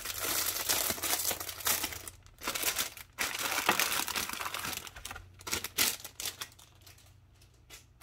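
Clear plastic packaging bag crinkling as it is handled and its contents are pulled out. The crinkling comes in dense spells through the first five seconds, then thins to a few quieter rustles.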